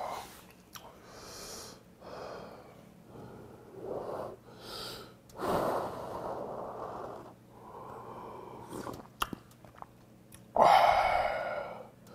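A person slurping hot ramen broth straight from the rim of a frying pan. A series of long, noisy slurps with breaths between them, the loudest one near the end.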